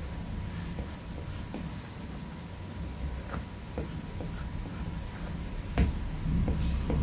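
Apple Pencil tip tapping and scratching on an iPad Pro's glass screen while sketching: a run of light ticks, with a louder knock a little before six seconds in.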